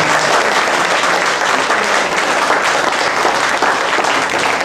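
Audience clapping in a steady round of applause.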